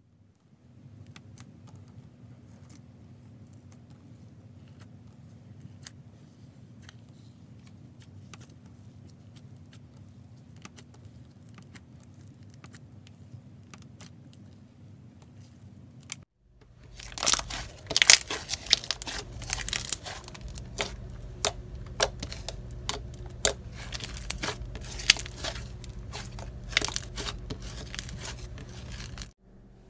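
Slime being kneaded and pressed by hand, making sticky crackles and pops. The first half is faint, with sparse clicks; about 16 seconds in it turns much louder, with dense crackling and sharp pops.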